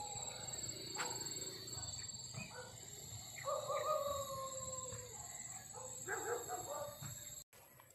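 An animal calling in the distance with several drawn-out cries, the longest about a second and a half and sliding slightly down in pitch, over a steady high-pitched trilling of evening insects. The sound cuts off abruptly near the end.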